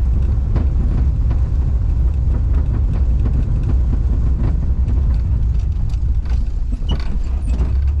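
Volkswagen Kombi van driving on a rough dirt road: a steady low engine and road rumble with scattered creaks, clicks and rattles from the body as it rides over the ruts.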